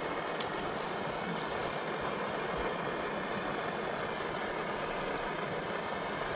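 Small backpacking gas stove burning under a pot: a steady rushing hiss.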